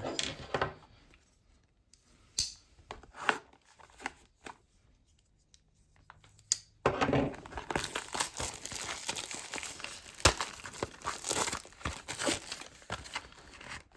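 The tape sealing a trading-card box being ripped and torn off, with crinkling wrapping. A few separate short rips come first, then about seven seconds of continuous tearing and crinkling.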